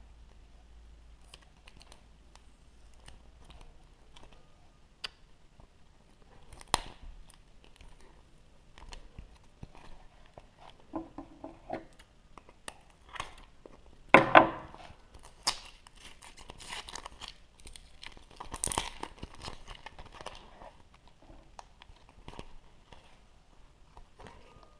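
Foil wrapper of a chocolate surprise egg being torn open and crinkled, with scattered clicks and cracks of handling. A louder sharp crack comes about fourteen seconds in.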